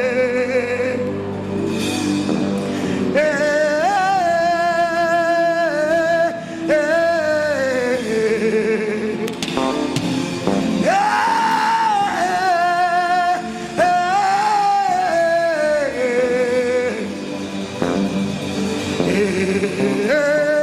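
Gospel worship music: a man singing long, drawn-out notes with a wavering pitch over a steady sustained instrumental backing.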